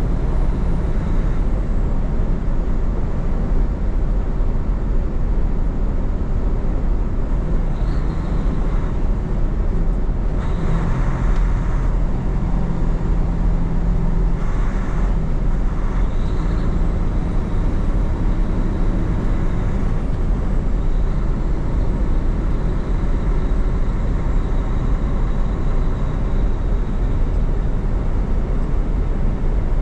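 Semi tractor-trailer cruising at highway speed, heard from inside the cab: a steady low drone of diesel engine and tyres on a wet, slushy road. The hiss swells twice, about a third of the way in and again near halfway.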